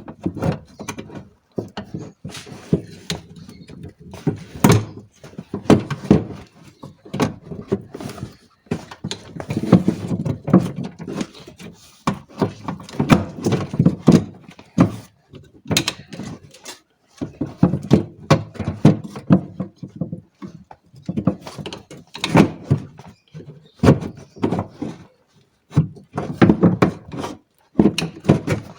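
Metal scissor-type window regulator being worked into a car door: irregular knocks, clunks and clicks of metal parts against the door frame.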